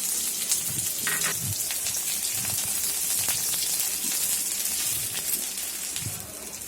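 Nigella seeds and chopped onion frying in hot mustard oil in a kadai: a steady sizzle, with scattered light clicks.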